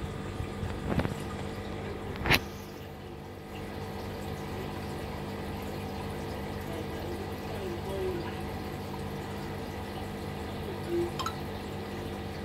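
Aquarium filtration running: a steady trickle of moving water over a low mechanical hum, with a few sharp clicks or knocks, the loudest about two seconds in.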